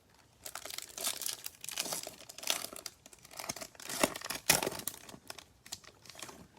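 Crinkly foil wrapper of a Bowman baseball card pack being torn open and crumpled, a run of crackling rustles with a few louder rips.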